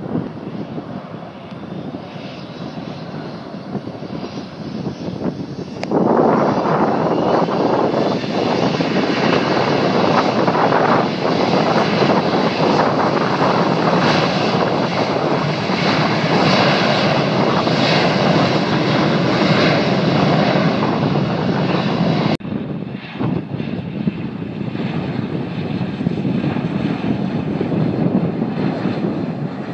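Jet airliner engines, heard from beside the runway: the noise rises sharply about six seconds in as the engines go to takeoff thrust and stays loud and steady through the takeoff roll. After an abrupt cut about two-thirds of the way through, a quieter steady jet engine sound follows as another airliner passes low over the runway.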